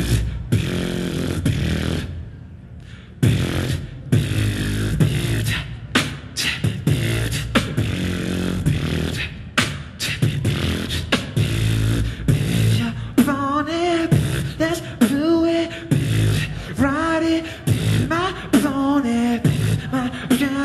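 Beatboxing: mouth-made kick and snare strokes over a low bass. From about thirteen seconds in, a sung or hummed melody with gliding notes comes in over the beat.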